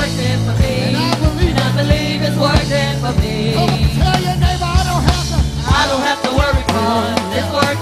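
Live gospel praise music: several singers on microphones over a band with a steady bass line and a drum beat.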